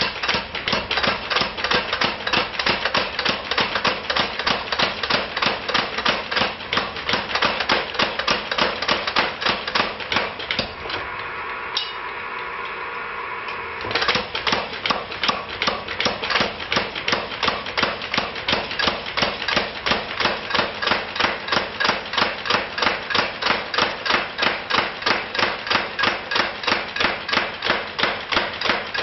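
Power hammer rapidly striking a spring swage around a red-hot steel bar, about four sharp blows a second, forging a round tenon. The blows stop for about three seconds near the middle, then resume.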